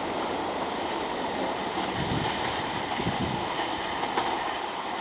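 Suburban electric multiple-unit (EMU) local train approaching along the track, a steady rumble of its wheels on the rails.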